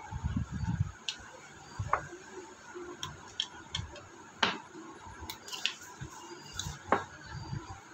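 Irregular small clicks and taps as a knife blade pries battery cells out of a hanging weight scale's plastic battery compartment, with a few dull handling bumps near the start and near the end.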